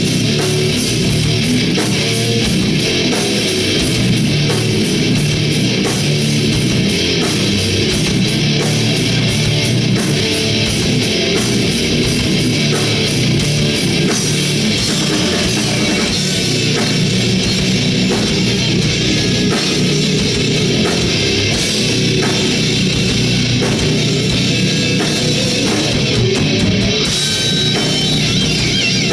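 Heavy metal band playing live: distorted electric guitars, bass and fast drums with cymbals.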